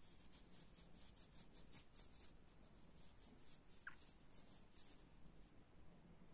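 Faint rapid rubbing of a terry-cloth towel over a copper wire ring worn on a finger, polishing it, several strokes a second; the strokes pause briefly midway and stop about five seconds in.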